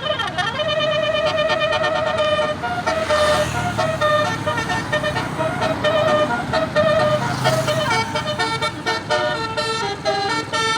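Basuri telolet musical air horn playing a fast melody, its notes changing pitch every fraction of a second without a break.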